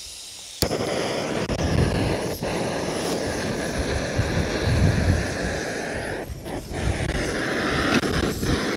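Small butane-canister camp stove being lit: a faint gas hiss, then a sharp ignition click about half a second in, after which the burner runs with a loud, steady rushing noise.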